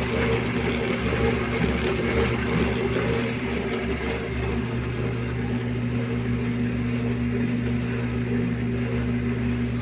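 Koblenz Ultraclean washing machine running: a steady electric motor hum with its gearbox turning, no let-up.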